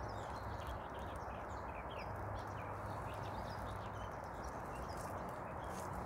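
A knife scraping scales off a fish on a plate, with a steady rasping scrape.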